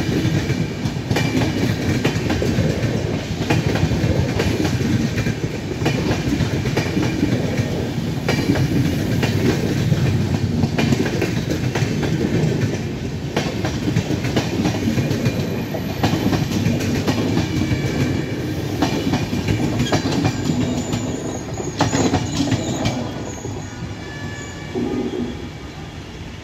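Indian Railways express train passing at speed, coach wheels clattering steadily over the rail joints. The clatter fades over the last few seconds as the final coach goes by and draws away.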